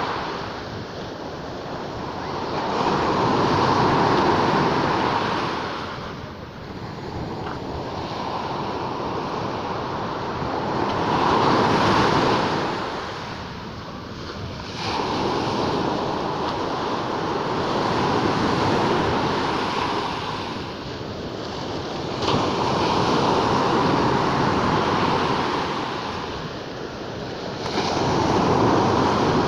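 Sea waves breaking as surf, a steady rush that swells and ebbs in slow surges about every five to eight seconds.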